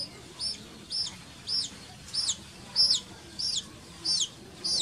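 Baby chick peeping loudly and insistently, a steady run of short high peeps that each fall in pitch, about nine in a row at a little under two a second: the chick's distress call.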